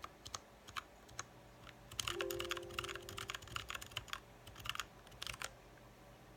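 Typing on a mechanical keyboard with tactile switches whose keycaps sit on rubber dome pads, which damp the keystrokes. A few scattered keystrokes, then a quick run of typing about two seconds in, then slower strokes that stop near the end.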